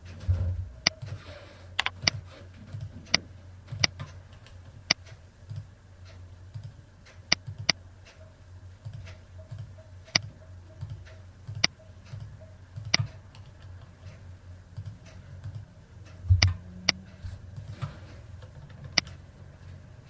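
Computer mouse and keyboard clicks: a dozen or more single sharp clicks at irregular intervals as a web form is filled in, with two low thumps, one near the start and one about three-quarters of the way through, over a faint steady low hum.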